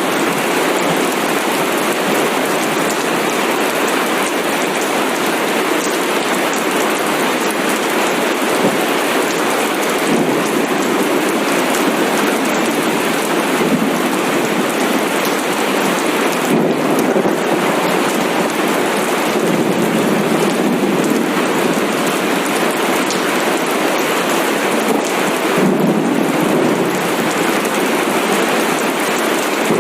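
Steady heavy rain, a dense continuous hiss that swells slightly about halfway through and again near the end.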